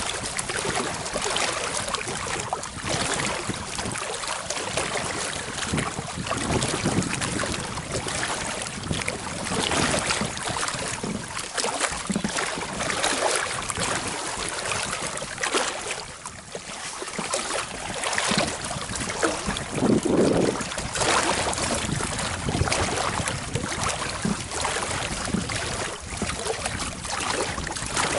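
Wind buffeting the microphone, with small waves lapping against an inflatable boat's pontoons, in an uneven, gusting rush.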